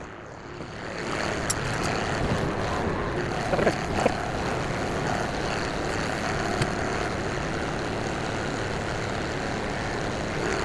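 Tractor engine running, its sound rising about a second in as it works, with a few short knocks.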